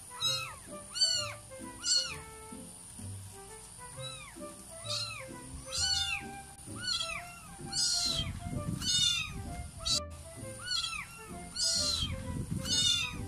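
Newborn kitten, being bottle-fed, mewing over and over in short high-pitched cries, each rising then falling in pitch, over background music.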